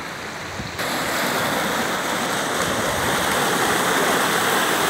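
Muddy floodwater rushing and churning, a steady noise that jumps louder a little under a second in.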